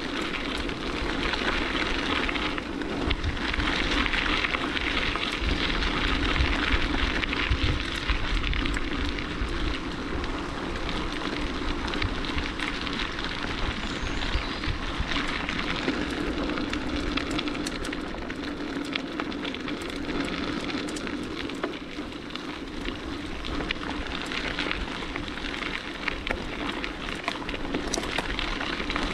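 Bicycle tyres rolling along a dirt forest track strewn with dry leaves: a steady crackling hiss full of small clicks, over a low rumble.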